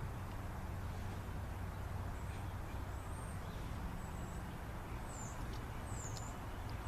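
A small bird giving short, high, thin chirps about once a second from about two seconds in, over a steady low rumble of outdoor background noise.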